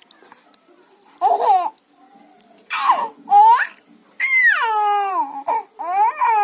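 A baby's high-pitched coos and squeals: a short one, then two more, then a long call that falls in pitch, and a last held call near the end, with quiet gaps between them.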